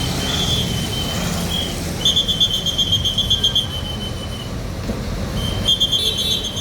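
A tour bus's telolet basuri horn playing a high, rapidly pulsing tune in short phrases, loudest about two seconds in and again near the end, over a steady low rumble of engine and traffic.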